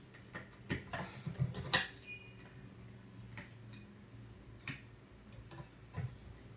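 Scattered light clicks and taps of small electronic modules and wire connectors being handled and fitted onto a circuit board, with one sharper click nearly two seconds in, over a faint steady hum.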